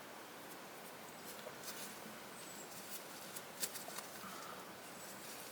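Feathers being plucked by hand from a bird carcass: faint, scattered scratchy rustles and small tearing clicks.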